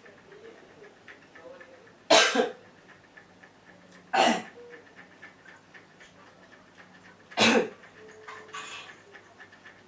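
A person coughing hard three times, a couple of seconds apart, then a softer raspy cough near the end: a faked cough for a pretend blood-coughing prank.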